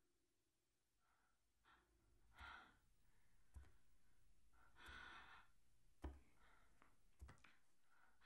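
Very quiet: a woman's faint breathing, with two longer breaths about two and a half and five seconds in, and a few soft knocks between them.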